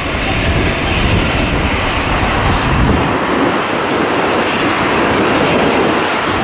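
Boeing 767 freighter's twin jet engines at takeoff thrust during the takeoff roll and rotation: a loud, steady jet rumble.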